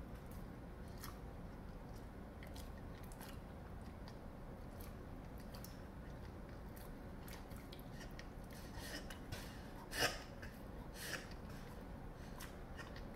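Dog lip-smacking and swallowing forcefully: scattered wet mouth clicks, thickening into a run of smacks and gulps about two-thirds of the way in, with the loudest gulp near the end. These are symptoms of severe esophagitis after surgery.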